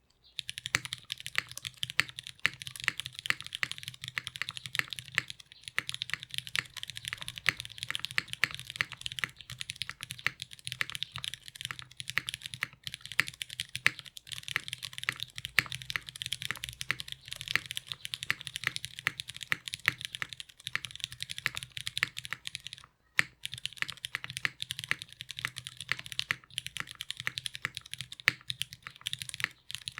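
Steady fast typing on an Iron165 R2 gasket-mount 65% custom mechanical keyboard: lubed, broken-in Cherry MX Brown Hyperglide tactile switches in an aluminum plate, under GMK keycaps, with lubed TX stabilizers. It breaks off briefly about two-thirds of the way in.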